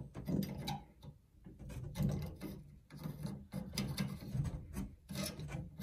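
Retaining ring being threaded by hand onto a Delta shower valve body to seat a new cartridge: irregular light scraping and small clicks of the parts rubbing as it turns on.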